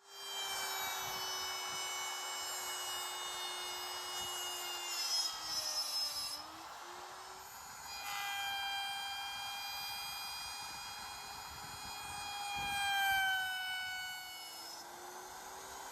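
Electric router running at high speed with a steady whine that sags in pitch twice as the bit bites into the wood, as when cutting machine dovetails for drawer boxes.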